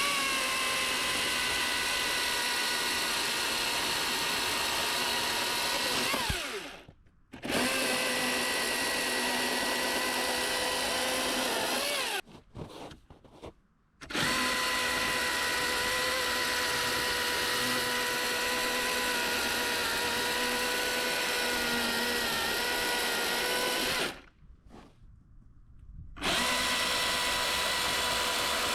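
Milwaukee M18 Fuel battery chainsaw running and sawing a dead beech log, a steady electric whine. It stops three times, for one to two seconds each, then starts up again.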